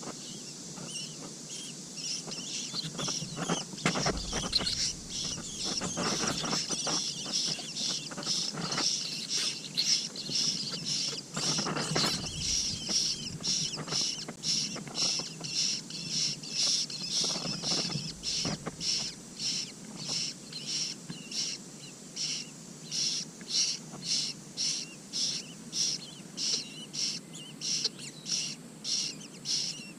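A bird giving short, high calls over and over. They become a steady series of about two a second in the second half. A couple of low thuds come through, one about four seconds in and another near the middle.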